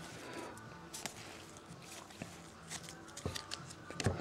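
Glossy trading cards being slid off one stack and onto another by hand: soft scattered clicks and paper rustles, with a sharper tap near the end.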